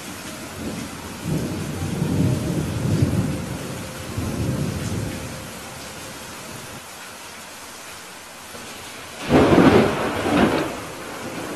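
Steady rain with thunder: a long, low rolling rumble in the first few seconds, then a louder thunderclap about nine seconds in.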